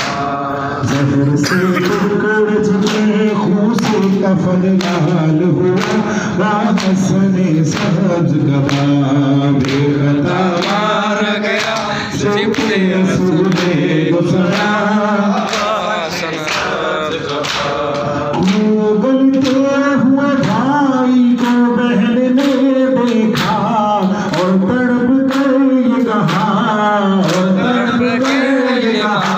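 Unaccompanied male noha (Shia lament) sung by a lead reciter through a microphone, with a group of men joining in. Under the singing runs a steady rhythm of open-hand chest-beating (matam) slaps. The singing gets louder about two-thirds of the way in.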